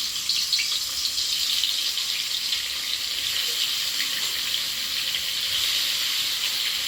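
Rohu fish pieces frying in hot oil in a kadai: a steady, loud sizzle with fine crackling.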